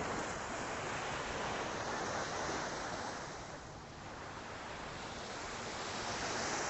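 Ocean surf washing ashore at low tide, a steady rush that swells, eases off in the middle and builds again near the end.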